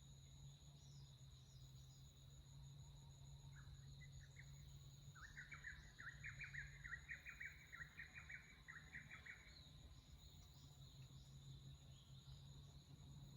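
Faint forest ambience: a steady high-pitched insect drone runs throughout under a low steady hum. About four seconds in, a bird sings a rapid run of repeated chirping notes that lasts about five seconds.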